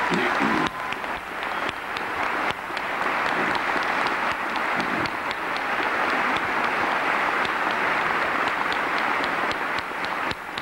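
A crowd in a packed room applauding steadily, welcoming a leader to the podium.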